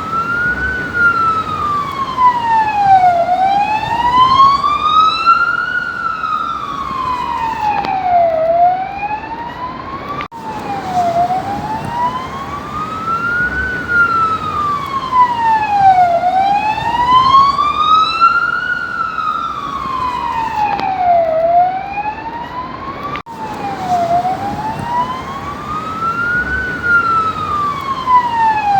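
Police car siren in wail mode, its pitch rising and falling slowly and evenly, about one full rise and fall every five seconds. The sound breaks off suddenly for an instant twice and picks straight up again.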